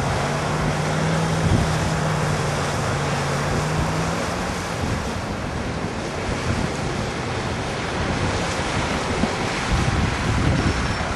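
Mitsubishi L200 pickup's engine pulling through deep mud, a steady drone that fades about four and a half seconds in, under heavy wind noise on the microphone.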